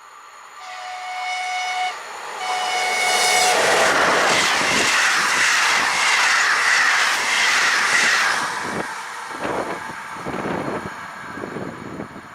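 An approaching train sounds two steady horn blasts, then passes close by with a loud rush of rolling noise. As it moves away, its wheels knock rhythmically over the rail joints.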